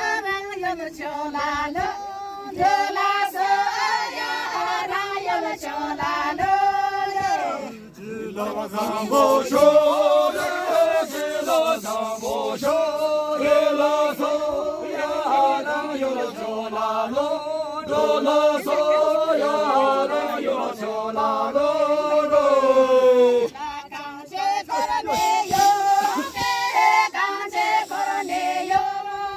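A group of women and men singing a Hyolmo folk dance song together, unaccompanied. The pitch drops at about eight seconds as the men's voices lead, and it rises again at about twenty-three seconds when the women's voices return.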